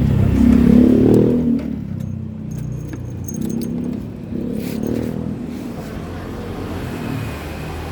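Motor vehicle engine running, louder for about the first second and a half, then settling to a lower steady rumble.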